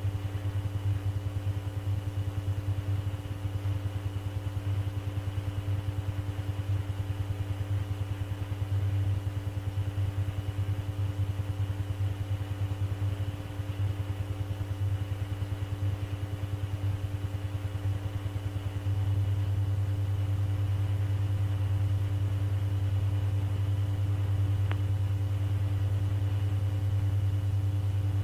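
Steady low electrical hum with a few faint higher tones on an air traffic control radio recording between transmissions. It flickers rapidly at first and turns even about two-thirds of the way through.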